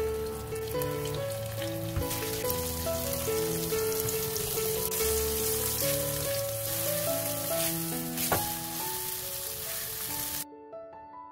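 Flour-dusted tofu slabs sizzling as they pan-fry in hot oil in a nonstick pan, with one sharp click about eight seconds in; the sizzle cuts off suddenly near the end. Soft plucked and piano background music plays throughout.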